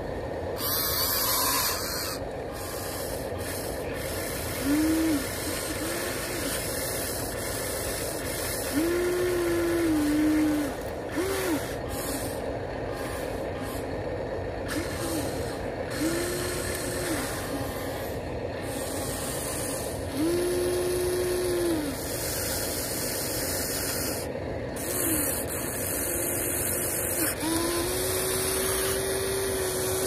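HuiNa RC excavator's electric motors whining in about nine short bursts as the boom, arm and bucket move, each burst half a second to about three seconds long, some rising in pitch as they start, over steady background noise.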